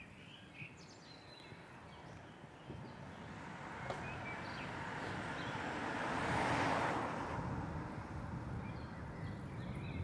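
A vehicle passing on the street, its noise swelling over a few seconds and fading again, over a steady low rumble. Birds chirp at the start.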